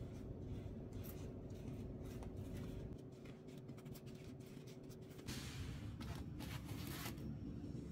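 Fried dough twist being rolled and pressed in a plate of granulated sugar: faint, gritty rustling and scraping of sugar crystals with small scratchy ticks. A louder rubbing rustle comes about five seconds in.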